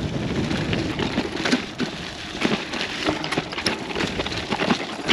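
Gravel bike rolling over a rocky dirt trail: a steady crunch of tyres on grit and stones with many small clicks and rattles.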